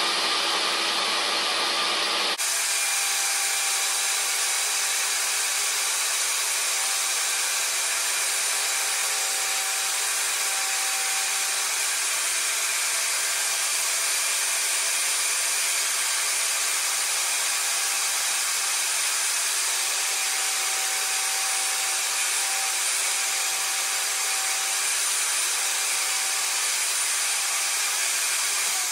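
Portable jobsite table saw running steadily with a high motor whine as a wooden cabinet door frame is fed over the blade to widen its groove. The sound changes abruptly about two seconds in, losing its low rumble.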